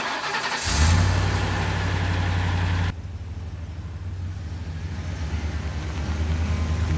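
Ford camper truck's engine starting up about half a second in, then running with a steady low pulsing note. A little under three seconds in, the sound cuts to a somewhat quieter stretch of the same engine as the truck pulls away slowly.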